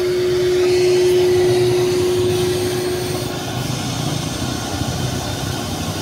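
Wet-and-dry vacuum cleaner running as its floor wand is drawn over a wet, shampooed rug. A steady hum in its sound stops a little past halfway, while the suction noise carries on.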